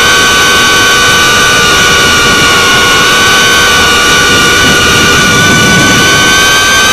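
FPV racing quadcopter's electric motors and propellers whining steadily in flight, with a rush of air noise, heard close up from the drone's own camera; the whine rises slightly in pitch near the end.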